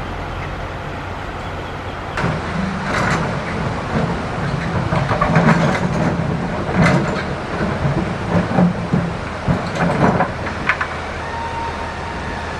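Excavator's diesel engine running steadily while river stones clatter and scrape against the steel bucket, in a run of irregular knocks and grinding from about two seconds in to about ten seconds.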